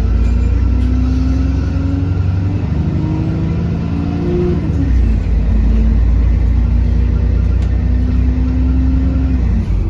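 Bus engine and drivetrain under way, accelerating with pitched tones rising, then a drop in pitch like a gear change about five seconds in, after which it runs steadily.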